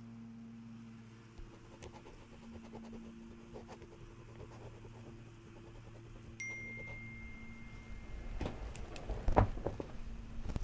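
A phone notification chime: one steady high tone about six seconds in, held for a couple of seconds. It is followed by a cluster of thumps and rustling as someone gets up from a cushioned window seat, the loudest thump near the end. A faint steady hum runs underneath.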